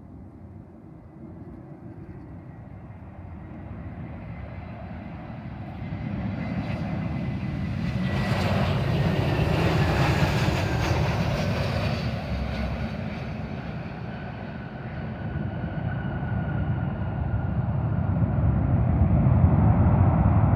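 Frontier Airlines Airbus A320-family jet landing, its jet engine noise growing louder as it passes close about ten seconds in, with a high whine that falls in pitch as it goes by. The noise eases, then a low rumble builds again near the end as the jet rolls out down the runway.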